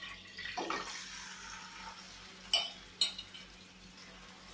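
Small turmeric-coated fish going into hot oil in a kadai and sizzling, the sizzle fading over about two seconds as they fry. Two sharp clinks of metal cookware follow, about half a second apart.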